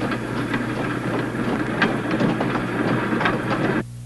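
Small railroad handcar rolling along the track, its wheels making a dense clatter of sharp clicks on the rails; the clatter cuts off abruptly near the end.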